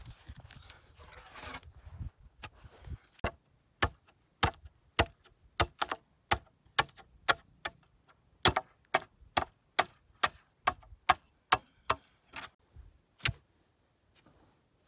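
A machete chopping in quick, even, sharp strikes, about two a second, with a lull before one more knock near the end.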